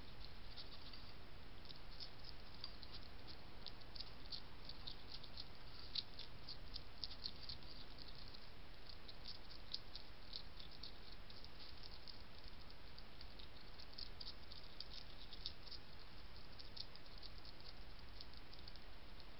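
Hedgehog chewing dry kitten biscuits: a long run of quick, irregular crunchy clicks over a steady faint hiss from the trail camera's microphone.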